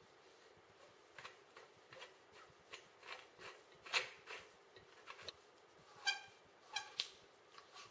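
RØDE NT1 condenser microphone being seated and screwed tight into its plastic shock mount: a run of light handling clicks and scrapes, the sharpest about four seconds in and a few more near the end.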